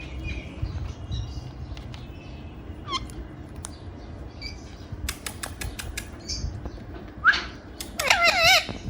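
Ringneck parrot chirping faintly, then a quick run of sharp clicks about five seconds in. A short rising call follows, and near the end comes a loud warbling call.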